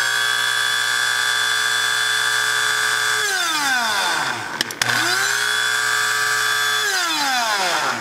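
Mr. Coffee electric blade coffee grinder grinding coffee beans in two pulses. The motor runs with a steady high whine, winds down with a falling pitch about three seconds in, then after a click spins up and runs again before winding down once more near the end.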